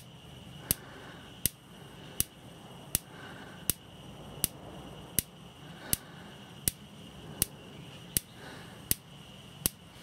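Gas fridge burner's spark igniter ticking on its own, one sharp click about every three-quarters of a second, while the gas has not yet lit.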